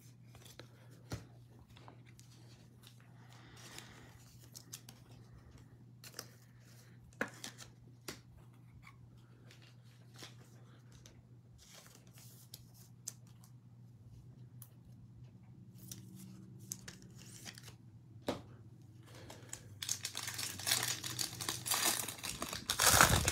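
Faint scattered clicks of cards being handled over a low steady hum, then, near the end, a foil trading-card pack (2021 Bowman Draft) crinkling loudly as it is torn open.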